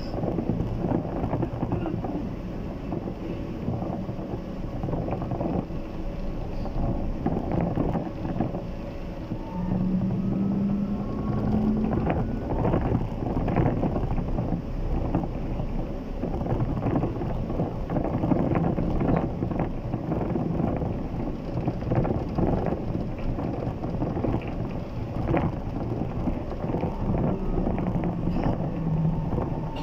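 Inside a Bogdan T90110 trolleybus under way: the steady rumble of the ride with frequent knocks and rattles from the body. A motor hum rises briefly twice, about ten seconds in and near the end.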